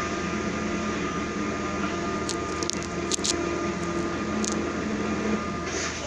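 Steady mechanical hum and hiss, like a fan or motor running. A few sharp clicks come about two to three seconds in, and one more a little later.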